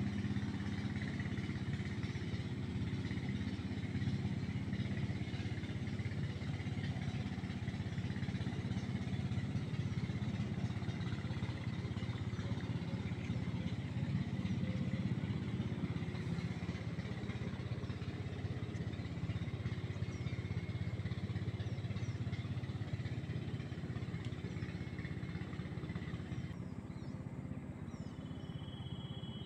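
A small engine running steadily, with an even low hum. Near the end a few short high chirps come in over it.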